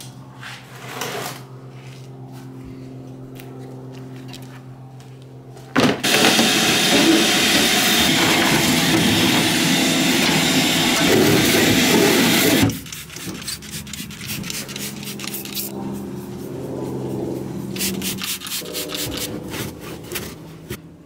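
Soft background music with held tones. For about seven seconds in the middle it is drowned out by a loud, rough rubbing or scraping noise that starts and stops abruptly.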